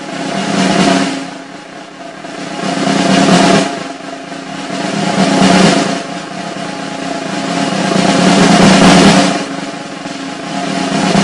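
Snare drum roll in the act's accompanying music, swelling louder and easing back several times over a few held notes.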